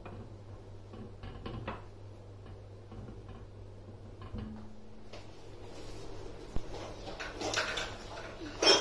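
A silicone spatula stirring and lightly scraping thin chutney in a stainless steel pot. From about five seconds in, the chutney bubbling at the boil on a gas burner, with a sharp knock near the end.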